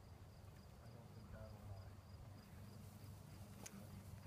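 Near silence: faint outdoor ambience, with a faint high chirp repeating evenly about three times a second and a single sharp click near the end.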